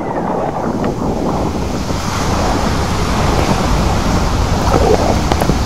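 Ocean surf rushing as big waves break and whitewater churns, growing louder about two seconds in, with wind buffeting the microphone.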